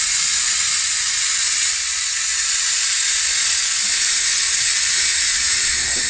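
Compressed air hissing out of the front Firestone air sleeve as the motorcycle's front suspension is let down: a loud, steady hiss of venting air.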